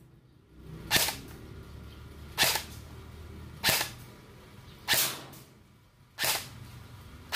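E&C 308 M4 airsoft electric gun firing single shots on semi-auto through a muzzle-mounted chronograph during a muzzle-velocity test: six sharp cracks about a second and a quarter apart.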